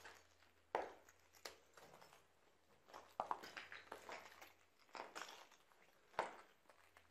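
Footsteps crunching over rubble and broken debris, about six irregularly spaced steps.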